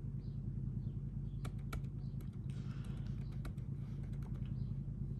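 Scattered sharp clicks, about eight of them at uneven intervals, over a steady low hum.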